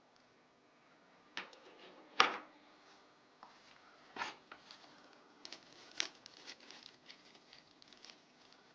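Scattered small clicks and taps of a repair tool against a smartphone's internal parts, the sharpest one about two seconds in.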